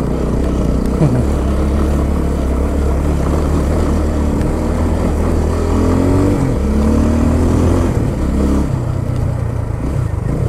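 Motorcycle engine running as the bike rides along a dirt trail, its note rising and falling a little with the throttle around the middle, heard from a helmet-mounted camera.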